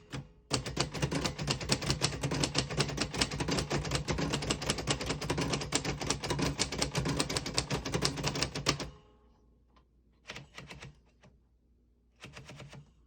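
1943 Royal Arrow manual portable typewriter being typed on at a brisk pace, its typebars clacking against the platen in a dense run for about eight seconds, printing in red from the lower half of the ribbon. After the run stops, a few single clacks follow.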